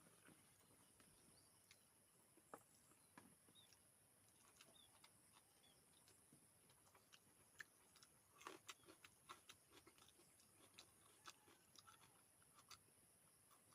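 Faint chewing and small mouth clicks of someone eating, with a denser run of crisp clicks about eight to ten seconds in, over a steady high hiss.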